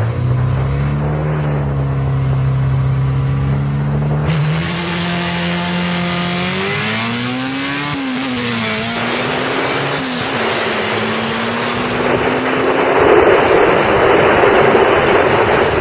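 Race car engine holding steady revs at the line, then launching about four seconds in and accelerating hard, its pitch climbing and dropping once at a gear change before holding, with rising wind and road rush heard from inside a car.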